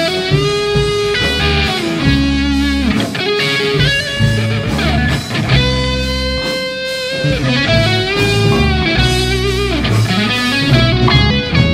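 Blues-rock band playing an instrumental passage: an electric guitar plays long lead notes that bend up and down, over bass guitar and drums.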